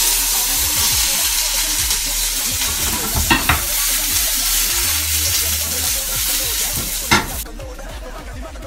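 Sliced mushrooms and yellow bell pepper sizzling loudly as they hit a hot frying pan, with a few knocks from the pan being shaken on the gas-hob grate. The sizzle drops off sharply near the end.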